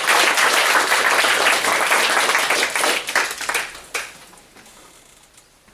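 Audience applauding. The applause thins to a few separate claps about three seconds in and dies away.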